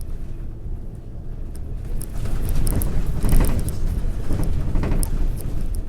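A vehicle rumbling, with a swell of louder noise from about two seconds in that fades near the end, like a vehicle passing close by, and scattered small clicks over it.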